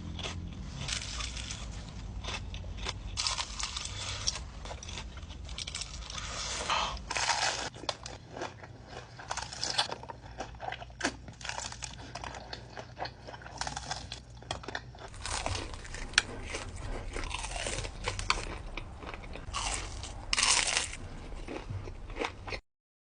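Close-miked biting and chewing of crispy fried chicken, with crunches coming irregularly throughout and several louder bites. The sound cuts off suddenly near the end.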